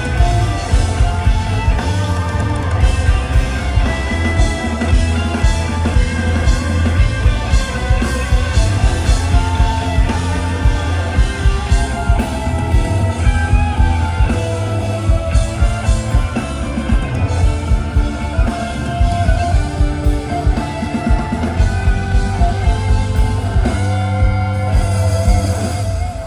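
Rock band playing live: drum kit and electric guitar over a steady beat.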